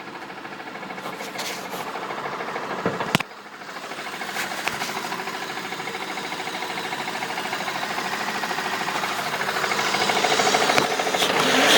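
Car engine running with a rhythmic knock, growing steadily louder; a sharp click about three seconds in.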